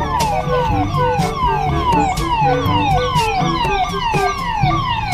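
Toy police car's electronic siren: a falling sweep repeated about two and a half times a second.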